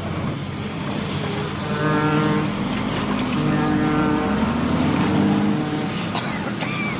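A boat engine running steadily on the water, with held notes of a background music score over it. A short rising-and-falling squeal and a few clicks come near the end.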